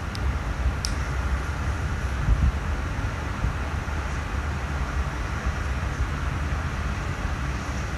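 Wind rumbling and buffeting on the microphone in the open air, low and uneven, with a short high click about a second in.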